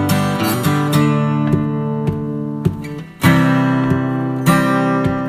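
Background music: acoustic guitar strumming chords, with a brief drop in loudness about three seconds in before a new strum.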